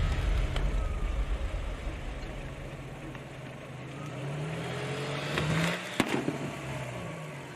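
Car engine running as the car pulls away, its note fading at first and then rising as it accelerates near the middle. A single sharp crack comes about six seconds in.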